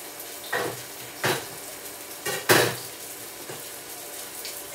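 Crockery and utensils knocking and clinking three times, the last knock the loudest with a short ring, over the steady sizzle of a fish fillet frying in oil in a pan.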